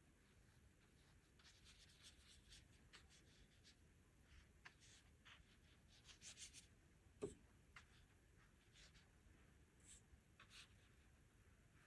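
Faint watercolor brush strokes on paper: short, scratchy brushing sounds coming in small clusters, with one sharper tap about seven seconds in.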